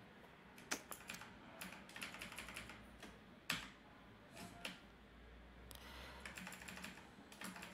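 Faint computer keyboard typing: irregular single keystrokes and short runs of keys as text is typed and edited.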